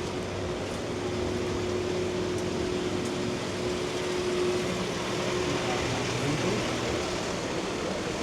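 Wet city street ambience: a steady hiss of rain and tyres with a vehicle engine running as a steady hum that fades about six seconds in, followed by a brief rising engine note.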